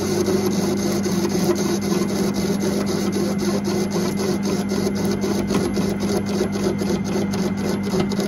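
Myford ML7 lathe running with its motor and belt drive humming steadily while the tool takes a facing cut across a mild steel hub with a welded section. A fast, regular ticking of about four to five a second becomes more distinct after about three seconds.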